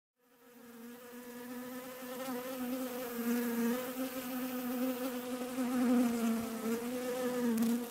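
Honeybee buzzing: a steady hum of beating wings whose pitch wavers slightly, fading in over the first couple of seconds.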